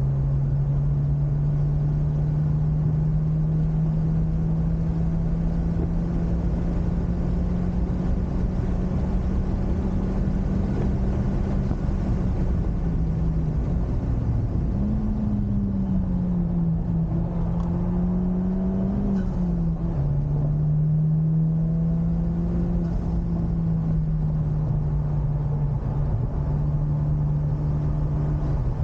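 Honda Civic Type R FK8's turbocharged 2.0-litre four-cylinder engine running on track at a steady drone, the pitch climbing slowly, then dropping and picking up again a little past the middle and once more shortly after, over road and wind noise.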